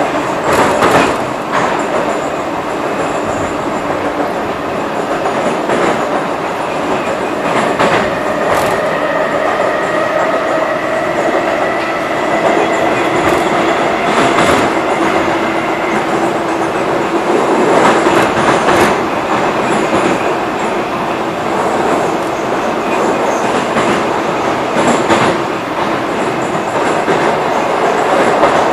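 Moscow-2024 (Metrowagonmash 81-775.2) metro train running, heard from inside the car: a steady rumble of wheels on rail, broken by scattered sharp clicks and knocks. Through the middle a faint whine rises slightly in pitch.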